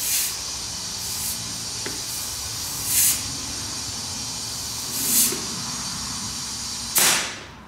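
Compressed air hissing steadily through an air-hose chuck into a tractor rear tire as it is inflated to about 10 PSI to seat the bead. Three short louder hisses come about two seconds apart, and after the last one, near the end, the airflow stops.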